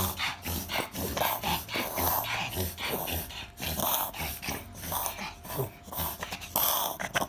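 A small dog coughing over and over in short hacking bursts, several a second with brief gaps: a persistent cough.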